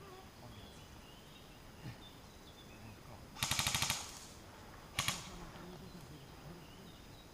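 Airsoft electric gun firing a short full-auto burst of about ten rapid shots, then a quick pair of shots about a second later.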